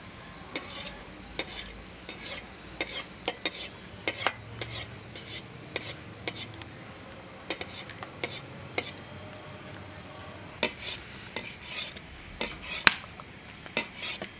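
A cleaver shaving strips off a lump of dough held on a metal bowl, for knife-cut noodles: a run of short scraping strokes, about one or two a second, with a pause about nine seconds in and a sharp click near the end. Water boiling in the wok underneath.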